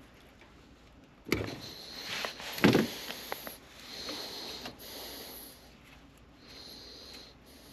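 Hands working on air-handler wiring: two sharp knocks about a second and a half apart, the second the louder, followed by light clicks and rustling.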